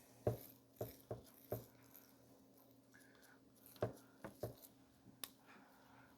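Hands patting and slapping a raw ground-beef mixture into patties: a series of soft slaps, some in quick twos and threes, over a faint steady low hum.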